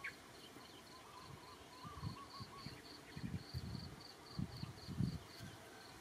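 Crickets chirping in a steady, even rhythm of several high chirps a second, with a brief lower wavering trill about two seconds in and soft irregular low rustling underneath.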